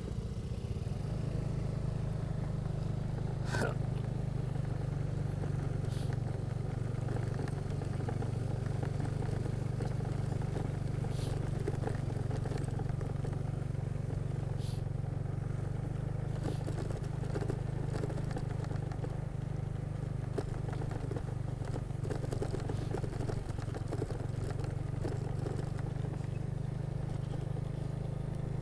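A motor vehicle running steadily, with a constant low engine drone and road noise and a few sharp knocks and clatters.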